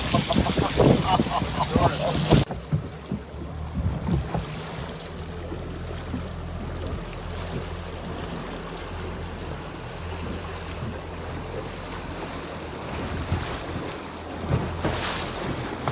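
Outboard motor running steadily with a low hum as the boat moves through choppy water. Wind buffets the microphone loudly for the first two seconds or so and again near the end.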